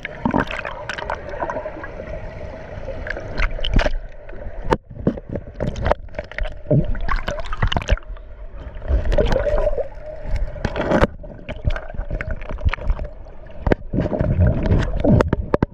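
Rushing stream water gurgling and splashing right against the microphone, broken by many sharp knocks and bumps.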